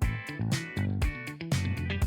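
Background music: a funky track with plucked guitar over a steady drum beat.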